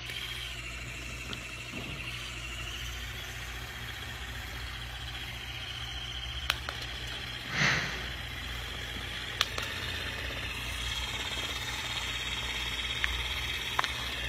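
Small electric motor of a battery-powered licking-tongue gadget, whirring steadily with a wavering high whine over a low hum. A single short breathy burst comes about halfway through.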